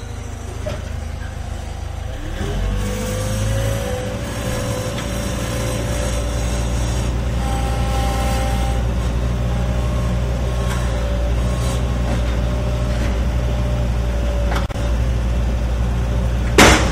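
Gehl 4510 skid steer's engine running, its pitch rising about two seconds in and then holding steady with a whine. A single sharp bang near the end.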